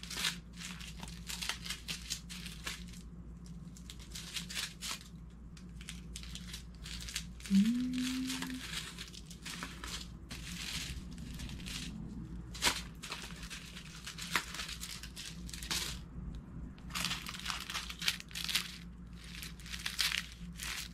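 Small plastic bags of diamond-painting resin drills crinkling as they are picked up, shuffled and set down, in many short irregular rustles. A little after seven seconds in, a short rising 'hmm'.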